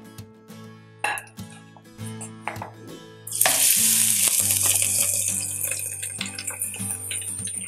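Rice coated in beaten egg yolk sizzling loudly in hot peanut oil in a wok, starting suddenly about three seconds in as the rice lands and is spread with a wooden spatula. Before that, a few light knocks of the spatula against the bowl and wok.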